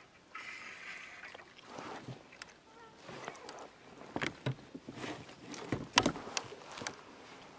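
Knocks and splashes from a plastic fishing kayak while a small fish is fought at the surface beside the hull: a run of short sharp clicks and knocks, the loudest about six seconds in.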